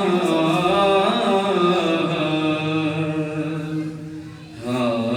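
Unaccompanied devotional chanting of an Urdu naat: a man's voice holds long melodic lines over a steady low drone, dipping briefly about four seconds in and coming back near the end.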